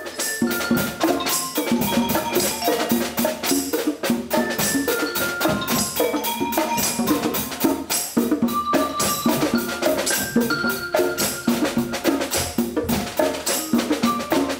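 Percussion ensemble playing a fast, even rhythm on snare drums, congas and drum kit, with short pitched notes from a mallet instrument running over it.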